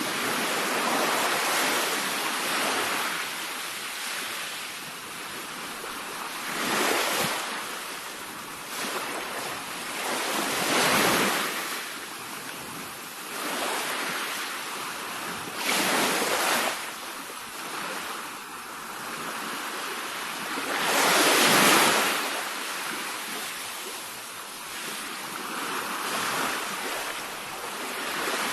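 Sea waves breaking and washing on the shore, a steady surf with several separate surges, the loudest about three quarters of the way through.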